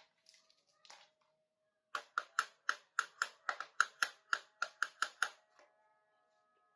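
A rapid series of about fourteen sharp plastic clicks, roughly four a second, from the parts of a miniature plastic toy kitchen set being handled and worked. A couple of single clicks come before the series.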